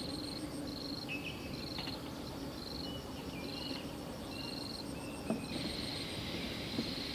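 Insect chirping in a high, evenly pulsed rhythm, about one chirp a second, merging into a continuous trill about five and a half seconds in, over a steady outdoor hiss with a few short higher calls.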